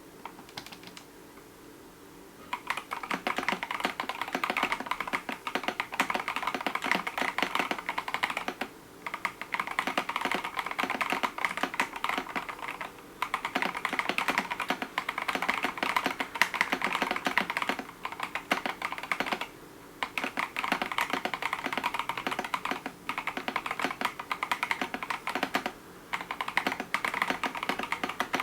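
Fast, continuous typing on an 8BitDo Retro Mechanical Keyboard with PBT keycaps on an aluminium plate: a dense run of key clicks that starts about two seconds in and breaks off briefly a few times.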